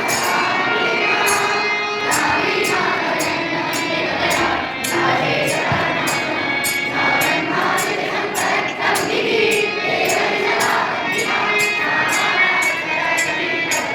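A group singing together over instrumental music, with a jingling percussion beat ticking about twice a second.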